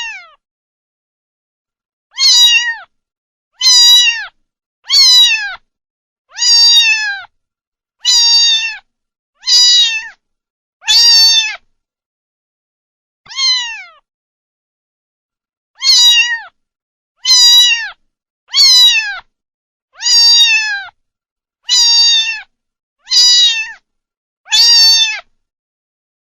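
A kitten meowing over and over, about fifteen short, high meows, each falling in pitch at the end, with a longer pause about halfway through.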